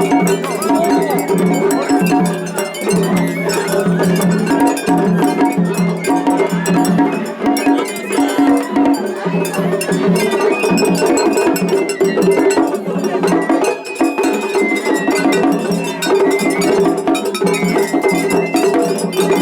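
Japanese festival hayashi from several float bands playing over one another in a seriai face-off, with metallic hand gongs clanging. Crowd voices can be heard under the music.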